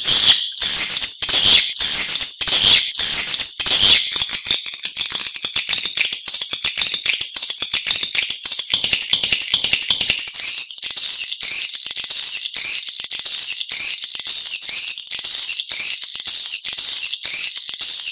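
Recorded swiftlet calls: high-pitched chattering twitters repeated in quick trains, pulsing about twice a second, denser and more continuous in the middle. This is a lure call played to draw swiftlets to a nesting house.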